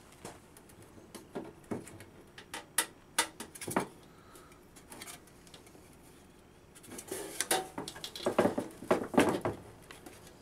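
Metal clanks and rattles from a wall pack light's metal housing being handled and swung shut over its reflector: a run of sharp taps in the first four seconds, a pause, then a longer burst of rattling and scraping near the end.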